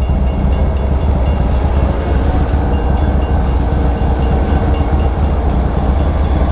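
Freight train cars rolling slowly through a crossing as the train reverses, a steady, loud rumble of steel wheels on rail.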